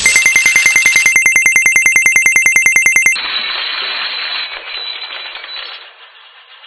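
A bell ringing rapidly, about a dozen strokes a second, that stops abruptly after about three seconds, followed by a hiss that fades away.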